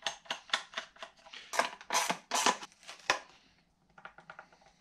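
Nuts being run onto bolts and tightened on a moulded plastic bracket with a hand spanner: a quick run of metal clicks, clinks and short rasping strokes, loudest in the first three seconds, then a short pause and a few fainter ticks.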